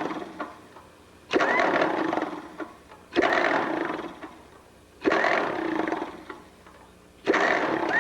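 Allis-Chalmers WD tractor's starter cranking the engine in four bursts of about a second each, every burst loudest as it begins and then fading, with short pauses between; the engine never fires, which the owner puts down to starter trouble.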